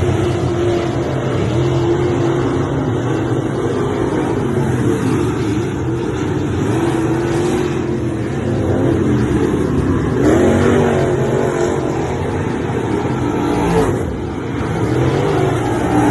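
Dirt late model race car engines running hard, with the engine pitch dipping and rising again about ten seconds in.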